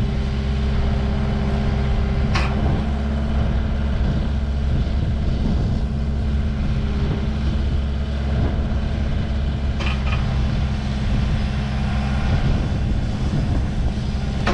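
Engine of the machine carrying a truss boom attachment running steadily while the boom works, with a sharp knock about two seconds in and another near ten seconds.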